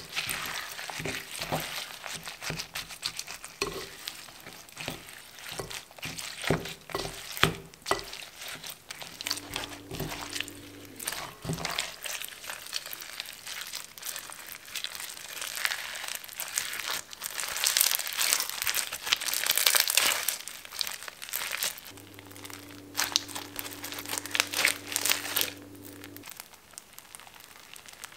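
Foam-bead (floam) slime crackling and popping densely as it is stirred with a plastic spatula in a glass bowl, then squeezed and kneaded by hand.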